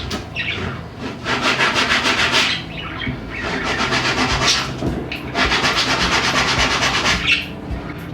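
A hand tool working wood in a few long rasping strokes, each lasting one to two seconds with short pauses between them.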